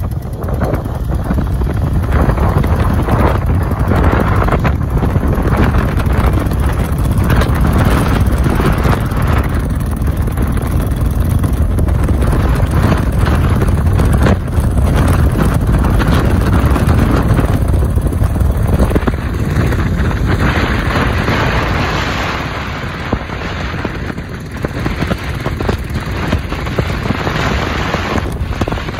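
Royal Enfield Bullet's single-cylinder engine running as the motorcycle rides at speed, heard from a following motorcycle, with wind buffeting the microphone. The sound eases off for a few seconds about two-thirds of the way through.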